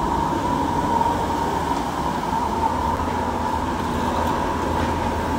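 Steady mechanical rumble and low hum of kitchen machinery, with a constant high whine running through it.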